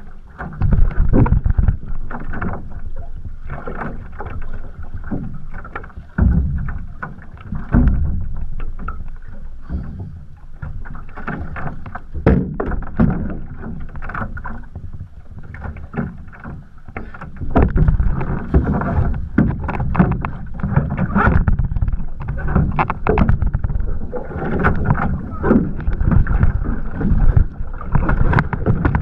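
Water sloshing and splashing against the hull of a capsized one-person outrigger canoe while the paddler in the water rights it and climbs back aboard, with wind rumbling on the microphone. The splashing grows heavier and busier about two-thirds of the way through.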